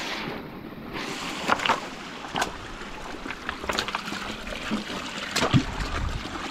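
Footsteps of a hiker splashing through a shallow creek over wet rock, with irregular knocks and splashes over a steady trickle of water.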